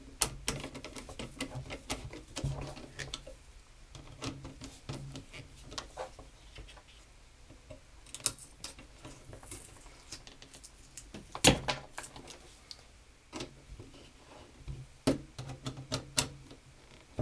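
Irregular small clicks and taps of a nut driver turning and snugging down screws in a car radio's chassis, with a sharper knock about eleven and a half seconds in.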